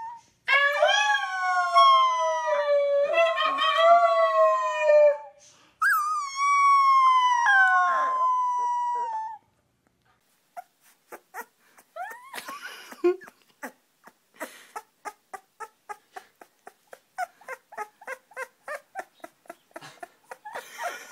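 Two very young puppies howling together in long, wavering howls that slide down in pitch: the first about half a second in, a second starting high near six seconds. After a short gap comes a string of quick soft clicks and small squeaks.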